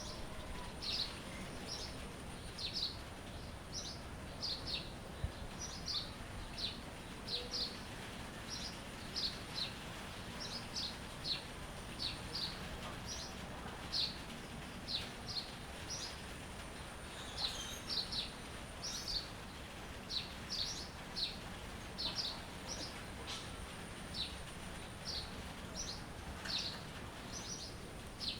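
Small songbirds chirping: short, high chirps repeated about once or twice a second, over a steady background hiss.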